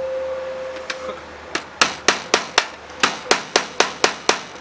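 Hammer driving nails through aluminum fascia: one strike about a second in, then a quick run of about ten sharp taps at roughly four a second.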